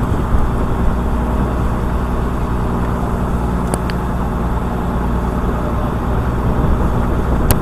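Engine aboard a purse-seine fishing boat running steadily, a low even drone, with a couple of light clicks about four seconds in.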